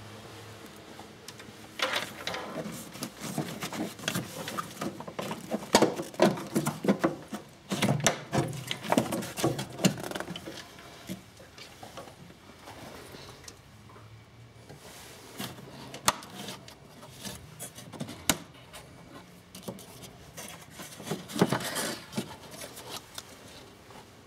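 Clicks, knocks and scraping of hard plastic trim being unclipped and lifted out by hand from the cowl below a car's windscreen, busiest in the first half, followed by handling of the cabin air filter as it is pulled out, with another short clatter near the end.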